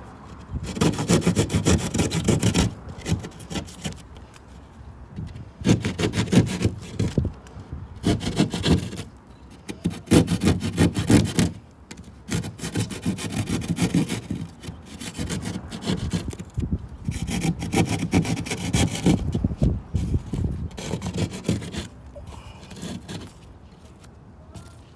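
Saw cutting through drywall along a marked circle, in repeated bursts of quick rasping strokes with short pauses between them.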